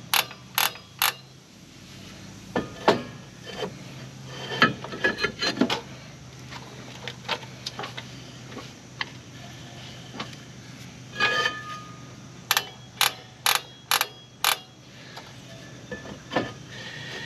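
Sharp metal clicks and knocks from a Jeep TJ rear drum brake being adjusted. The star adjuster wheel is turned with the shoes exposed, then the brake drum is fitted back over the shoes and worked by hand to check the shoe-to-drum clearance. There are three clicks in the first second, more in scattered clusters, and a run of five about half a second apart near the end.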